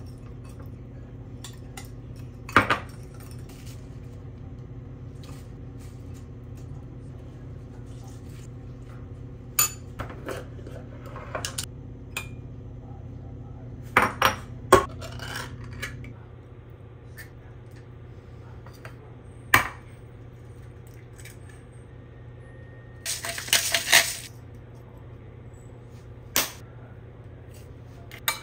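A metal spoon and small glass bowls clinking, with knocks on a stone countertop: scattered sharp clinks and a short clatter of several near the end, over a steady low hum.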